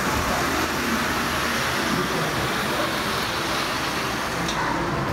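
Steady hum and hiss of room noise in a model railway hall, with no distinct events standing out.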